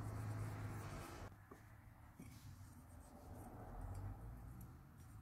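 Faint rubbing of fingertips spreading brake lube over the steel anti-chatter clips of a brake caliper bracket, with a couple of light metallic clicks around the middle as the clips and bracket are handled.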